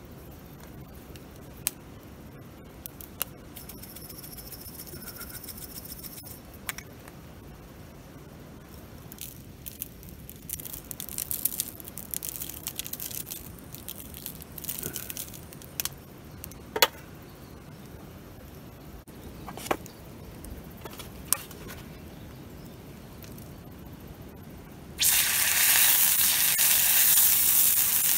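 Dry spice shaken from a shaker onto raw steaks in short bursts, among scattered sharp clicks. About 25 seconds in, a steak sizzles loudly and steadily as it sears in a cast-iron skillet over a wood fire.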